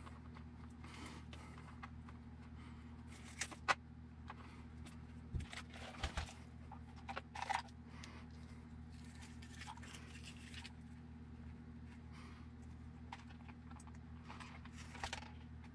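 Faint scattered clicks and light taps of small parts being handled: a hex driver backing out aluminum screws and the plastic battery tray of a Kyosho Inferno MP10e buggy being lifted off the chassis. A steady low hum runs underneath.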